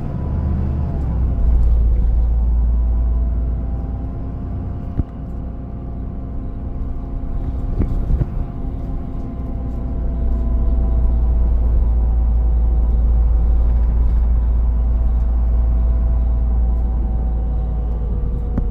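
Mitsubishi Fuso Aero Star (QKG-MP38FK) city bus heard from inside, with a low engine rumble and a steady whine of several tones over it. This is an unusual groaning noise for this bus, and it is not coming from the air conditioning or the heater, which are both off. Two sharp knocks come about five and eight seconds in.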